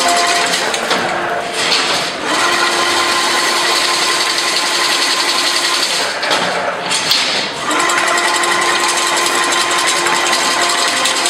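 Chain link fence weaving machine running, weaving a single wire into diamond mesh: a fast, continuous metallic clatter that eases briefly about two seconds in and again around seven seconds in.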